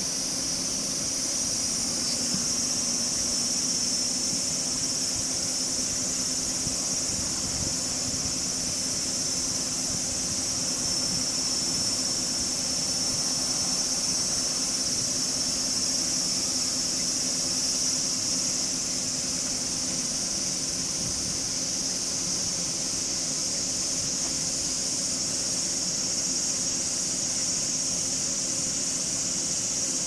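Steady, high-pitched chorus of insects shrilling without a break, over the constant splash of water spilling down a small step in an irrigation channel.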